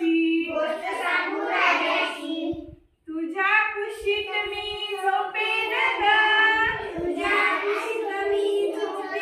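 A group of young children singing a Marathi action song together with women, breaking off briefly about three seconds in.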